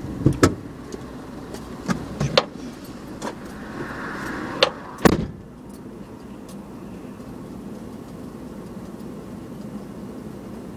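Clicks and clatter of someone getting out of a car, with a car door shutting about five seconds in. After that only a low steady hum is left.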